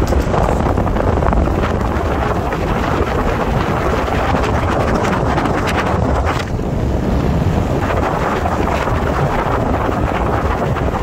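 Steady rush of wind buffeting the microphone over the low rumble of a moving vehicle.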